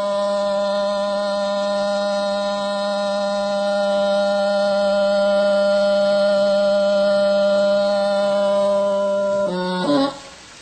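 Music: a single long note held steady for about nine seconds, then broken off, leaving much quieter sound near the end.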